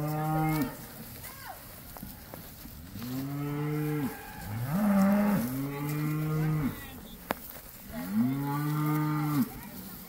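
Cattle mooing: about five long moos, one after another and sometimes overlapping, with a short sharp click about seven seconds in.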